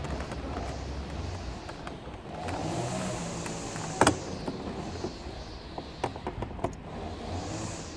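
Plastic trim clips of a BMW E90 rear door's inner pull handle snapping loose as a screwdriver pries the handle cover off: one sharp snap about four seconds in, then a few lighter clicks near the end, over a steady low rumble.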